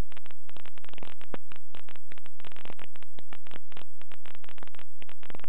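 Rapid, irregular crackling clicks with a low hum beneath, at a steady level.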